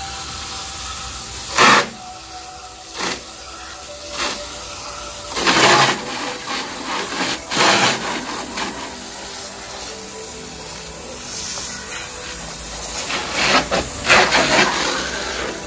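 Garden hose with a brass spray nozzle spraying water onto an air conditioner's finned condenser coil and metal housing, washing dirt out. A steady hiss and splatter, with several louder surges as the jet hits the coil and casing at closer range.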